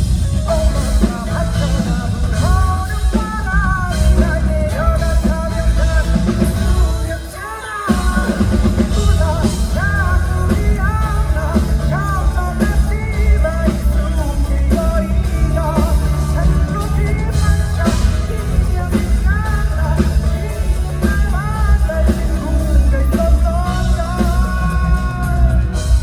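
Male singer singing a song live with a rock band, drums and bass prominent under the voice, with a short break in the band about eight seconds in.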